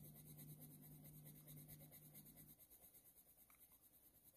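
Faint scratching of a Faber-Castell Polychromos coloured pencil (ivory) drawn over hot-press watercolour paper in repeated light strokes, laying down a base layer. A low steady hum stops about two and a half seconds in.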